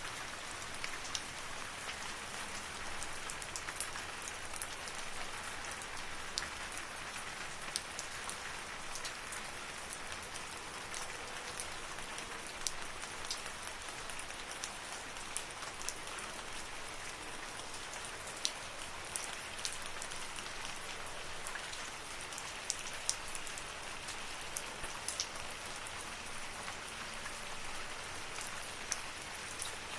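Steady rain falling in a forest, an even hiss with scattered close drops ticking sharply on leaves and surfaces.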